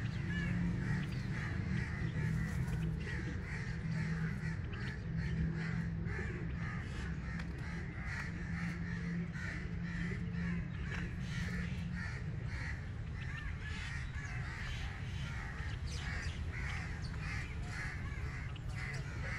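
Many birds calling, a quick run of short repeated calls with no letup, over a steady low hum.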